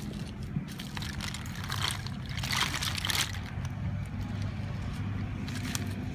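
Hands sorting through a heap of snails, shells clicking and rattling against each other, busiest in the middle and again near the end. A steady engine hum runs underneath.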